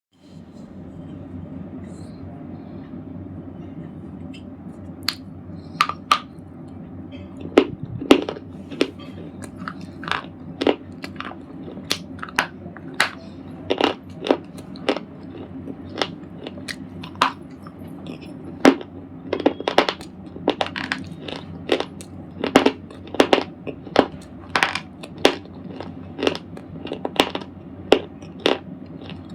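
A red slate ball being crunched: sharp, irregular crisp cracks that begin about five seconds in and come one to three a second, over a steady low background hum.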